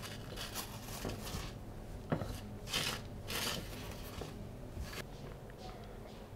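Granulated sugar scraping on a flowered plate as a fried donut is rolled through it by hand. There are a few short sweeps, loudest around the middle, with a single knock just before them.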